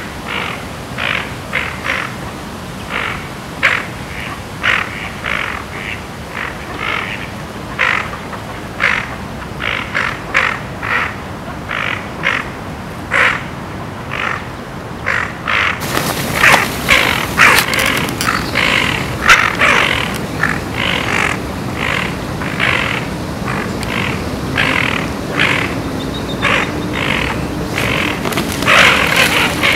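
A duck quacking over and over, about one or two short quacks a second; the quacking gets louder about halfway through.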